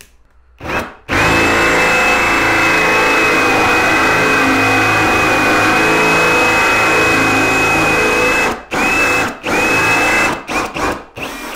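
Bosch GSB 18V-150 C cordless drill with a brushless motor boring a round hole in particleboard. After a brief trigger blip it runs steadily for about seven seconds with a high motor whine, stops, then gives two short bursts, with a few small clicks near the end.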